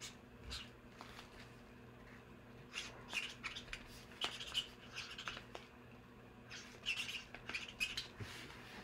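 Faint scattered clicks and rustles of small objects being handled, a few slightly louder around the middle and near the end, over a steady low hum.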